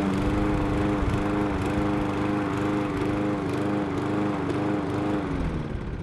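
Remote-control lawnmower's gasoline engine running, its pitch rising and falling about once a second, fading away near the end.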